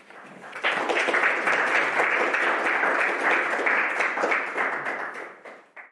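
Audience applauding, starting about half a second in, holding steady, then dying away and cutting off just before the end.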